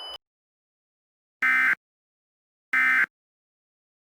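Emergency Alert System end-of-message data bursts: two short, identical buzzy digital squawks with a silent second between them, and a third starting right at the end. This is the closing code that marks the end of the flash flood warning broadcast.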